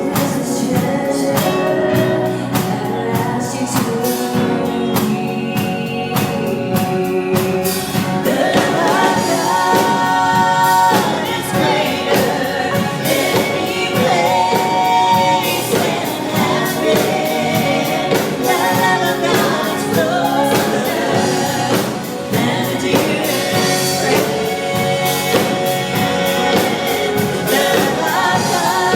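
Live gospel music: a vocal group singing together with piano accompaniment, the voices coming in stronger about a quarter of the way through.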